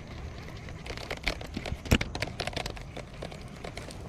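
Footsteps through grass with rustling and clicking from handling the camera and rod, and one sharp knock about two seconds in.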